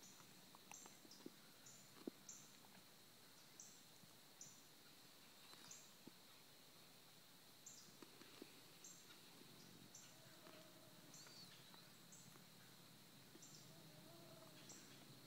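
Near silence: faint woodland ambience, with a short high chirp repeating about once a second over a faint steady high hum and a few soft rustles.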